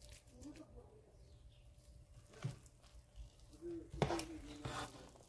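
Quiet handling sounds around a served plate: a few light knocks and clinks, the loudest about four seconds in, with a short hummed voice sound under it.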